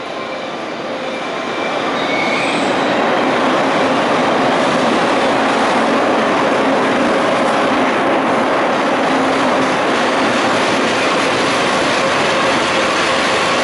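Electric freight locomotive and its container wagons running into a station, braking to stop: steady rolling wheel noise that grows louder over the first three seconds as the locomotive draws level, then holds as the container wagons roll past, with thin wheel and brake squeal.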